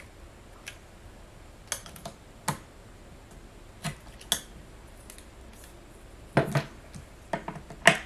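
Scattered light clicks and taps from hands handling crafting supplies on a cutting mat: a roll of tape and a small clear grid ruler being picked up and set down. The taps are sparse at first and come louder and closer together near the end.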